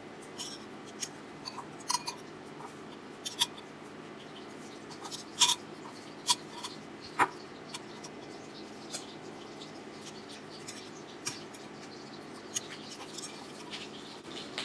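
Shrimp frying in hot avocado oil in a skillet, with irregular sharp crackles and pops over a steady low background, the loudest pop about five and a half seconds in.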